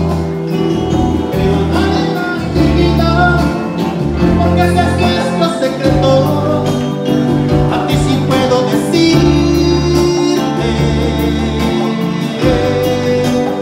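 Live band music from an electronic arranger keyboard, a melody over held bass notes that change every second or so.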